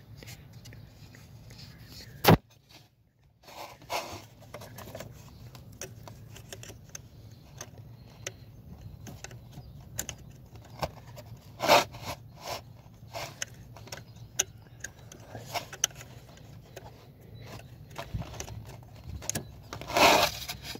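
Scattered clicks, clinks and rattles of hands and tools working on parts in a car's engine bay, with one sharp click about two seconds in and a clatter of rattles near the end, over a steady low hum.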